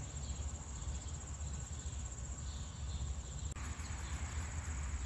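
Insects trilling steadily at a high pitch, over a low outdoor rumble.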